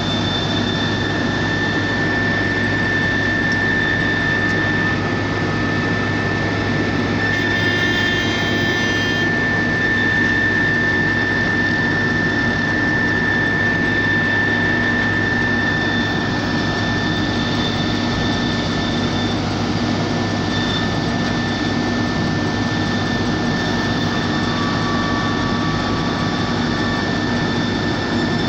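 Heavy road-construction machinery running steadily, a loud continuous engine noise with a steady high whine over it.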